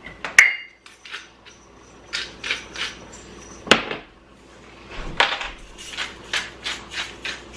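Hand-twisted pepper mill and then salt mill grinding over a pot: runs of short rasping crunches, about three a second, with a ringing metallic clink about half a second in and a single knock near the middle.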